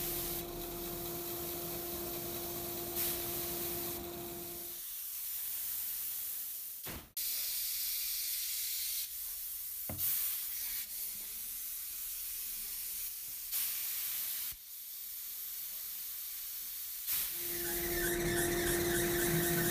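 A steady hiss that changes level abruptly several times, with a steady low hum in the first few seconds that stops about five seconds in and comes back near the end.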